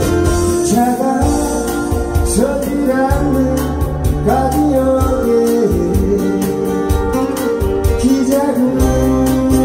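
A man singing a Korean pop ballad to his own acoustic guitar strumming, with a steady beat and a bass line underneath.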